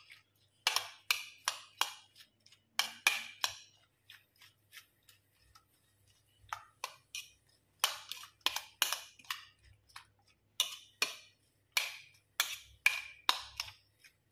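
Metal spoon clinking and scraping against a bowl while stirring wet chopped tomato, onion and chilli: a run of irregular sharp taps, a few a second, that go quieter for a couple of seconds in the middle.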